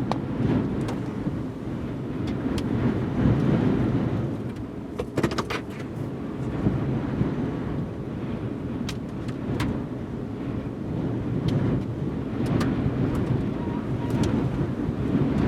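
Strong rear-flank downdraft wind buffeting a vehicle: a low rushing that swells and eases in gusts, with scattered faint clicks.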